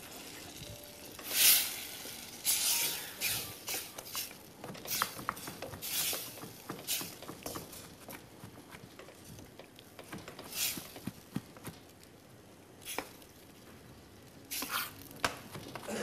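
A wooden spoon stirring and scraping tomato sauce in a saucepan, then a chef's knife chopping black olives on a wooden cutting board: irregular knocks of the blade on the board, with a few louder scraping bursts.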